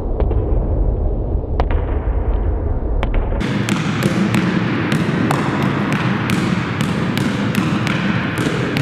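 Basketball dribbled low and fast on a gym floor. From about a third of the way in the bounces become sharp and clear, about three a second, each with a short echo.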